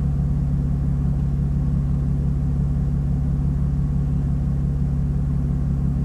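Car engine idling, heard inside the cabin: a steady low hum.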